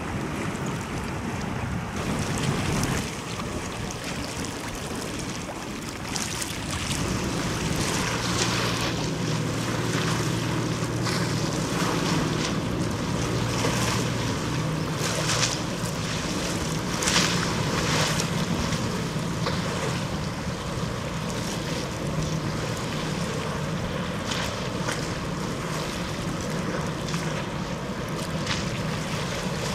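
Wind on the microphone and water lapping, with gusts coming and going. From about seven seconds in, a steady low drone of ship engines joins in.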